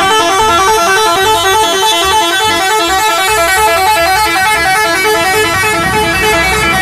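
Indonesian tour bus's musical "telolet" horn playing a fast, repeating melody of notes that step up and down without a break. It is loud.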